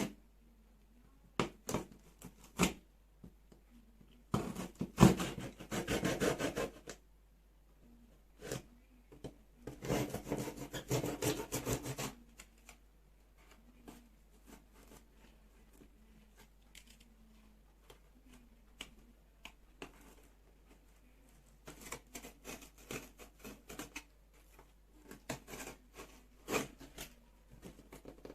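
Utility knife cutting through cardboard: three stretches of scraping, slicing noise with scattered clicks and knocks between them and quiet pauses.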